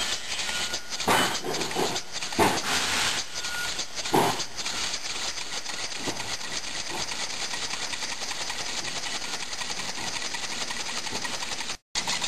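Homemade single-cylinder compressed-air engine running fast, its valves exhausting air in a quick, even chuffing rhythm, with a few louder hisses of air in the first few seconds. A second cam-driven valve feeds air on the return stroke as well, so it pulses on both strokes. The sound drops out briefly near the end.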